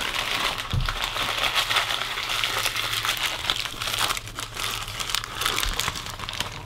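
A paper napkin being crumpled and handled in the hands, a continuous dense crinkling crackle that runs on without a break.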